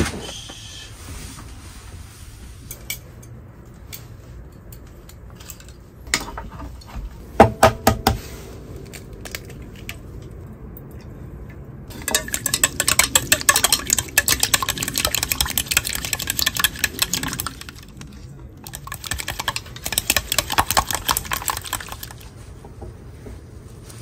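Chopsticks beating an egg mixture in a stainless steel bowl: a fast clatter of clinks against the metal in two spells, the first about half the way in and the second near the end. A few sharper knocks come before the beating.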